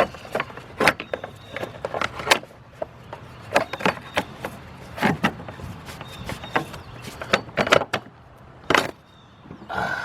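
Irregular knocks, clacks and scrapes as a timing-belt cover is worked loose and pulled out from a car engine.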